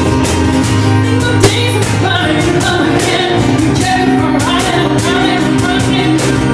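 Live acoustic pop song: a woman singing over a Roland digital piano, with acoustic guitar and a steady beat of hand strikes on a cajón. Her voice comes in about two seconds in.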